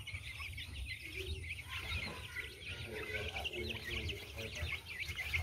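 A flock of young chicks cheeping, with many short, high chirps overlapping in a continuous chorus.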